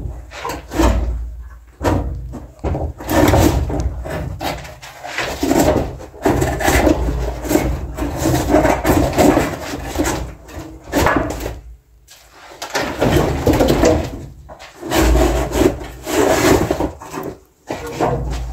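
A bar being worked off a wooden door panel to open it: repeated bouts of wood scraping and rubbing, with knocks.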